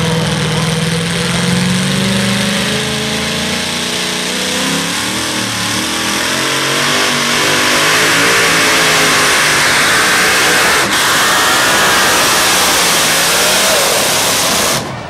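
Supercharged engine of a Ford modified pulling truck revving, its pitch slowly rising, then running loud and steady at full throttle under load as the truck pulls the sled. The sound cuts off suddenly near the end.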